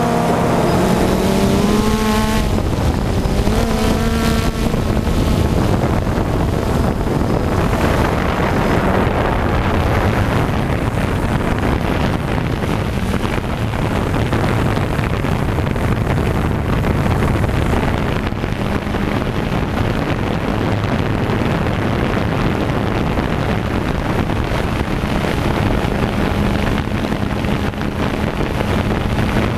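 Drone's electric motors and propellers buzzing steadily, heard through the camera carried on the drone itself. The pitch wavers up and down in the first few seconds, then settles into an even drone.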